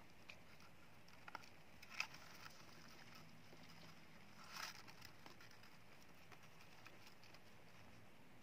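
Near silence, with faint taps and rustles from a hamster cage with wood-shaving bedding: a sharp click about two seconds in and a brief scrape about four and a half seconds in.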